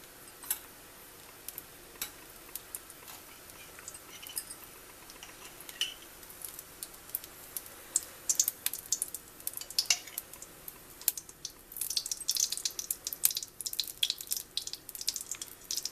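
Refined oil and desi ghee heating in a kadhai, giving off scattered crackles and pops that come more and more often, thickest over the last few seconds as the oil comes up to frying heat.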